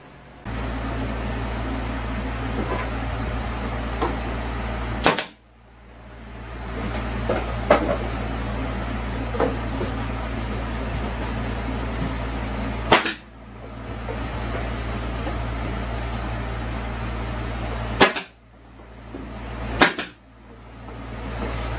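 A steady low motor hum, broken four times by a sharp click; after each click the hum drops away and then climbs back up.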